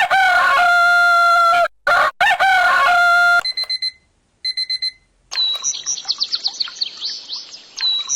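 Alarm clock's built-in alarm sounds: a recorded rooster crowing twice, then two short runs of quick electronic beeps, then a run of rapid high bird chirps.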